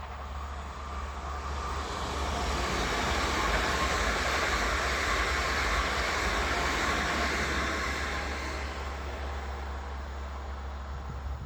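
Train passing by on the line: the rumble and rail noise swell over the first few seconds, hold loudest for several seconds, then ease off.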